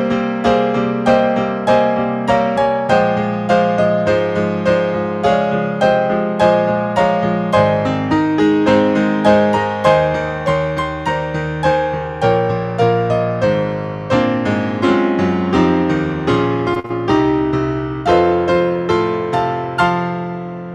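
Piano music: a slow, even melody of about two notes a second over held chords, fading out on a last chord near the end.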